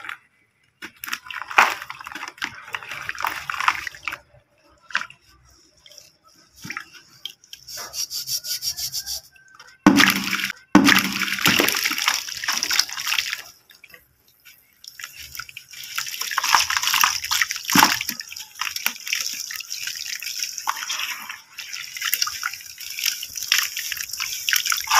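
Hands squeezing and crumbling wet balls of brick dirt in a tub of muddy water: irregular splashing, sloshing and dripping with short pauses, and a sudden louder splash about ten seconds in.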